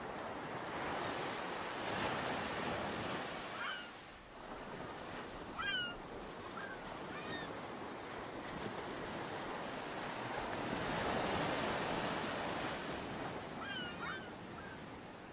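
Ocean surf breaking and washing up a sandy beach, swelling and easing twice. A few short high chirps come through now and then.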